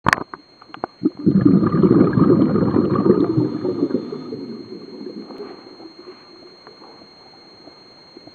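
Scuba diver exhaling through a regulator underwater, heard through the camera housing: a burst of bubbling and crackling starts about a second in and fades away over the next few seconds.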